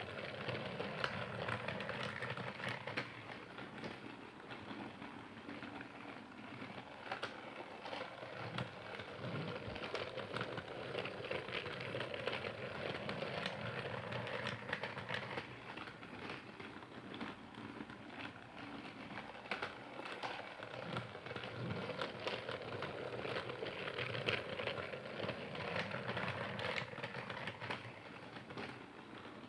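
Percy toy train running along its track, with a steady clatter of many small clicks throughout.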